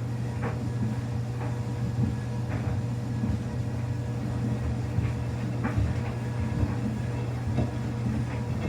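Samsung washing machine running a quick wash cycle with a load of wet towels: a steady low motor hum, with a few soft short sounds from the turning drum.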